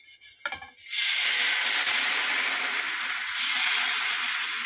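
Thin rice neer dosa batter poured onto a hot oiled tawa, starting to sizzle loudly just under a second in and carrying on steadily as the batter spreads and bubbles. There are a couple of light knocks just before the sizzle starts.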